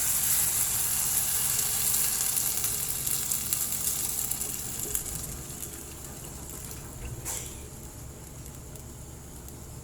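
Chicken and glutinous rice sizzling in a pot, the sizzle fading away over several seconds as broth is poured in to start the arroz caldo soup. A short knock about seven seconds in.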